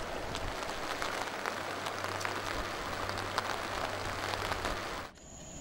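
Steady rain falling on foliage: an even hiss with scattered drop ticks, cutting off abruptly about five seconds in.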